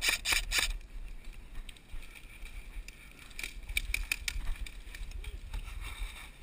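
Quick, even footfalls and gear rattle of a player running, about five a second, stopping under a second in; after that come lighter, scattered steps and clicks, with low wind rumble on the microphone throughout.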